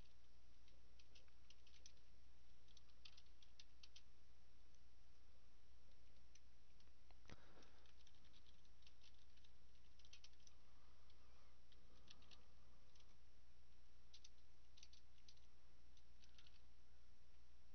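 Computer keyboard being typed on: irregular runs of short, sharp key clicks with pauses between words, over a steady low hum. A single heavier knock comes about seven seconds in.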